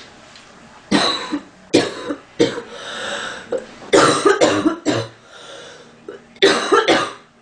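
A woman coughing in bouts: three separate coughs in the first few seconds, then a quick run of coughs about four seconds in and another run near the end, with quieter breaths between them.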